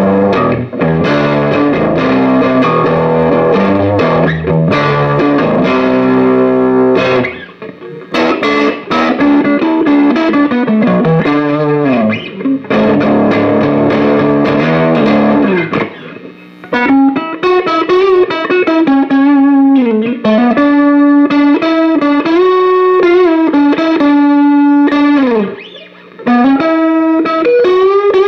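Electric guitar played through a Behringer GMX212 modeling combo amp on a distorted high-gain setting. It opens with full chords, moves to riffs, and in the second half plays single-note lead lines with string bends and vibrato, with a few brief pauses.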